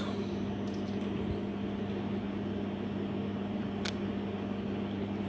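Steady low hum over a faint even background noise, with a single short click about four seconds in.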